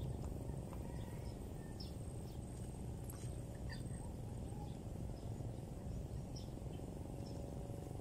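Outdoor background: a steady low rumble with scattered short high chirps of small birds, about one or two a second.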